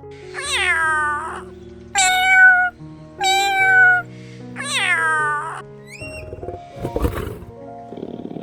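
Domestic cat meowing four times in the first half, each call sliding down in pitch, over background music with long held notes.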